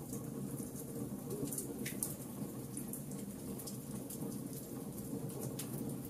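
Logs burning in a fireplace: a steady low rush of flames with scattered sharp crackles and pops, the loudest pop about two seconds in.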